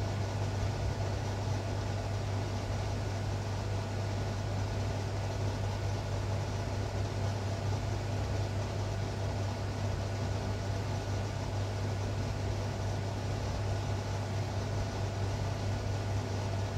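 Steady low hum with an even hiss behind it, unchanging throughout.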